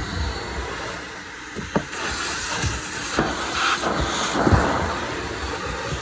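Vacuum cleaner running, its hose and wand nozzle sucking over trunk carpet with a steady hiss. The hiss grows louder and brighter from about two seconds in to about five as the nozzle works the carpet, with a brief knock just before.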